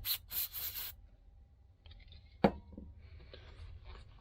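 Small parts being handled and worked at a workbench: several quick rubbing, scraping strokes, then one sharp click about two and a half seconds in, and faint scraping after it.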